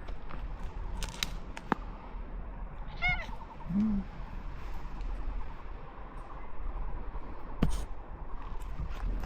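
A cat gives one short meow about three seconds in, over a steady low background with a few sharp clicks.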